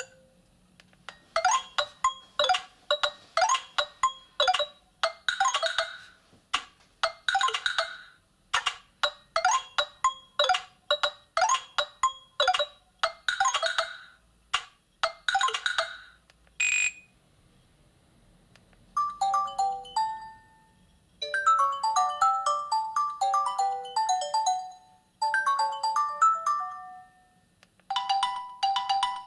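Nokia 8000 4G phone's loudspeaker playing ringtones: one fast melody of short ringing notes, a single short beep, then after a brief pause a different melody of clean stepped tones.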